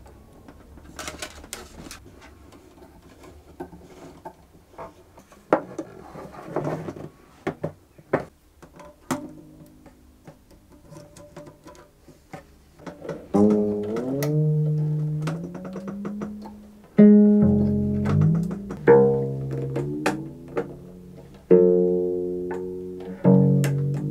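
New strings being fitted to a cello: clicks and rattles of string handling at first, then, from about halfway, the strings plucked and ringing as they are tightened at the pegs, their pitch sliding upward as they come up to tension but not yet in tune.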